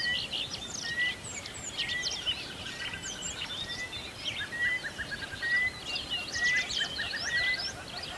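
Several small birds singing and calling at once in a dense chorus of quick chirps and whistles, with one short whistled note repeating about once a second.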